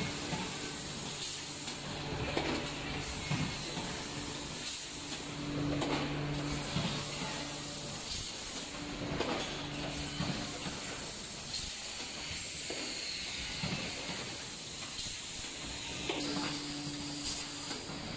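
Automatic rotary pouch packaging machine running: a steady hiss of air with a low hum that comes and goes, and a sharp clack every few seconds as the machine cycles.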